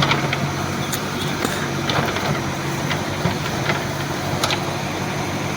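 Backhoe loader's diesel engine running at a steady speed, with a few sharp clicks and knocks scattered over it.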